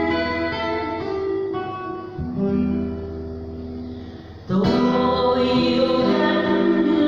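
A woman sings a Vietnamese ballad into a microphone over acoustic guitar accompaniment. The music grows quieter between phrases, then comes back loud about four and a half seconds in.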